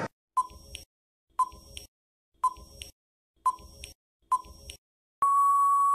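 Quiz countdown timer sound effect: five short electronic beeps about a second apart, then one longer steady beep near the end marking time up.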